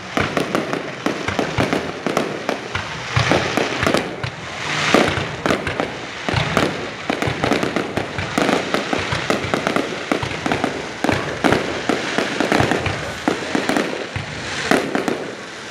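Aerial fireworks display: many shells bursting one after another, a dense run of overlapping bangs and crackling, with short hisses now and then.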